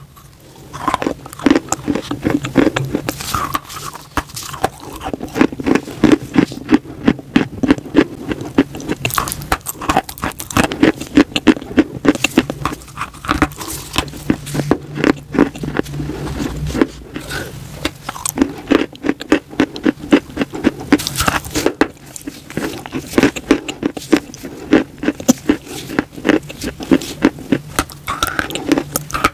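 Sticks of coloured chalk bitten and chewed close to the microphone: a dense run of dry crunches and crackles, with short lulls between bites.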